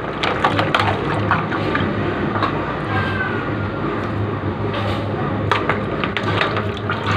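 Water running steadily during dishwashing, with short clinks and knocks of dishes over a continuous low hum.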